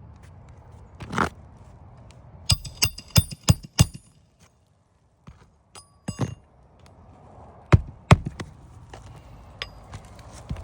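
Hammer striking a metal roof snake nail remover worked under asphalt shingles, in sharp ringing blows: a duller knock about a second in, a quick run of five strikes about two and a half seconds in, then a few single blows later on.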